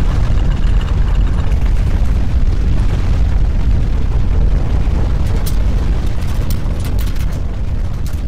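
Loud, deep rumble of a landslide that slowly fades, with scattered crackles in its second half.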